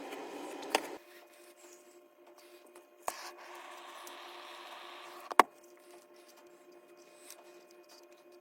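Workbench handling noises from soldering a car stereo wiring harness: a low hiss that stops about a second in, three sharp clicks (the loudest about five seconds in), a short stretch of soft hiss, then a faint steady hum with small ticks.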